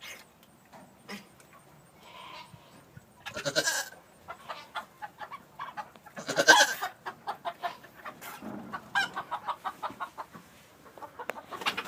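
Barnyard animal sounds: chickens clucking in short rapid runs and a goat calling, with two louder, harsher noisy bursts, about a third of the way in and about halfway through.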